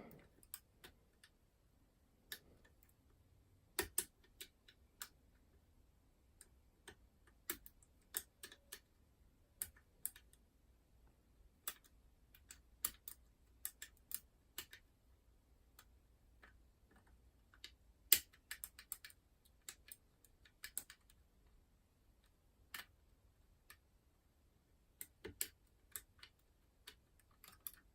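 Faint, irregular metallic clicks of a curtain pick and tension wrench working the levers of an ERA Fortress five-lever mortice lock during picking. The clicks are scattered, roughly one or two a second, with a few louder ones.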